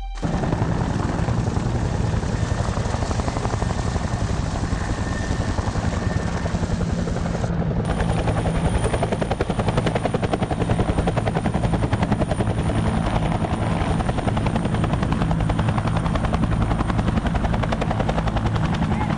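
Helicopter flying overhead, its rotor beating fast and steady over the engine noise.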